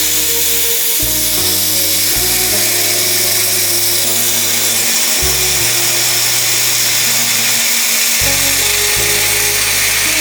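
Background music with a stepping bass line over a steady high hiss: red-hot iron balls sizzling as they melt into ice.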